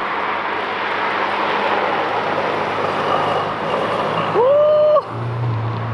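Ferrari SF90's twin-turbo V8 accelerating away with a rushing engine and road noise. Near the end it revs up sharply to a high, held note, which cuts off suddenly and leaves a low drone.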